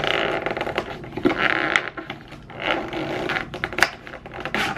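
Thin plastic lid of a takeout food container being worked off by hand: crackling and clicking plastic in several short bursts.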